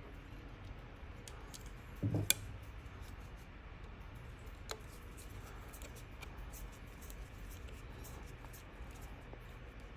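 Small handling sounds of work on a sewing machine's thread tension assembly: a soft knock and a sharp click about two seconds in, a lighter click near the middle, and faint ticks, over a steady low hum.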